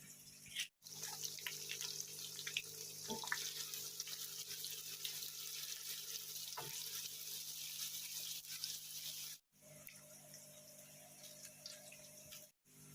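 Heavy rain falling, a steady hiss with scattered drips. It drops off sharply to a quieter patter about nine seconds in.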